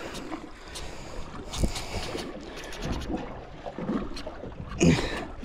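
Wind on the microphone and water against a small boat's hull, with scattered light knocks and clicks and two louder thumps, one about one and a half seconds in and one near the end.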